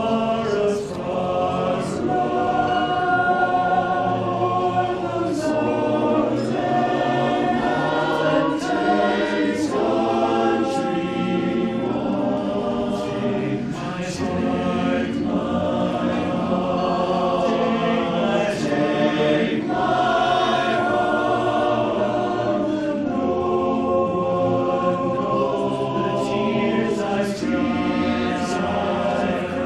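Barbershop chorus singing a cappella in close harmony, voices holding and moving through sustained chords.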